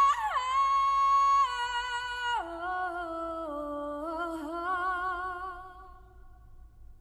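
A woman singing solo, holding a long high note, then dropping to lower notes with vibrato about two and a half seconds in and fading away near the end. Played through a Toyota Prius α's stock speakers from a Pioneer carrozzeria DEH-970 head unit, heard inside the car's cabin.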